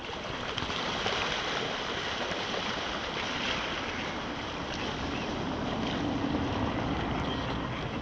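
Steady rushing noise of wind and moving open water.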